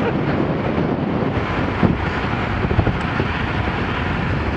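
Steady rush of wind buffeting a bike-mounted camera's microphone, mixed with tyre noise on asphalt, while riding at speed.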